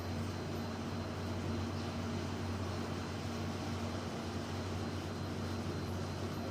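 Steady machine hum with an even hiss and a faint high whine, unchanging throughout; no bird calls stand out.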